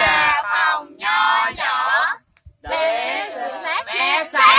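A group of young voices singing together in unison in short phrases, with a brief pause a little past two seconds in.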